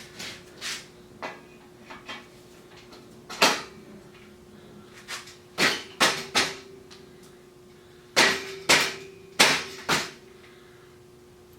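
Sharp metal knocks and clicks from work on a hand truck's wheel assembly, coming irregularly, with the loudest in quick groups of three and four in the second half. A faint steady hum runs behind them.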